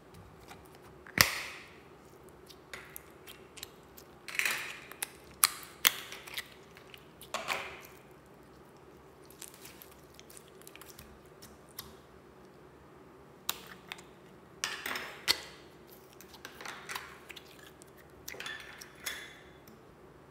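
A sharp snap about a second in, then short bursts of crackling and squelching as crunchy foam-bead slime is squeezed and pressed into a bowl of soft slime.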